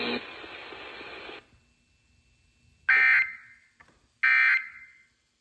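Emergency Alert System SAME data bursts: two short, harsh digital screeches about a second and a half apart, after a stretch of radio hiss that cuts off.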